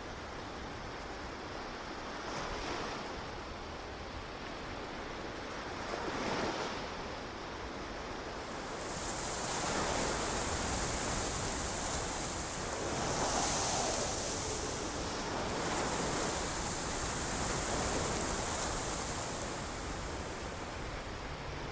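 Ocean surf: waves breaking and washing in, swelling every few seconds. A steady high hiss joins about nine seconds in.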